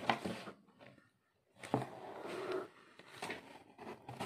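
Soft handling noises at a table: a few light taps and clicks with faint rustling of plastic-wrapped packaging.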